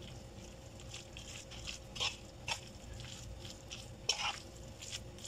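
A fork stirring a wet batter of grated pumpkin and shredded chicken in a wooden bowl: soft, irregular squelching, with a few sharp clicks of the fork against the bowl, the loudest about four seconds in.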